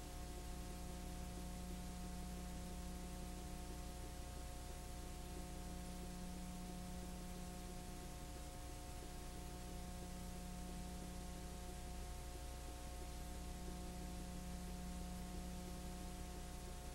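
Steady electrical hum with an even background hiss, unchanging throughout, with no other sound.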